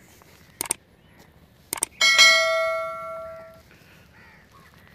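Two short mouse clicks, then a bright bell ding that rings and fades away over about a second and a half: the sound effect of an animated subscribe-button and bell-icon overlay.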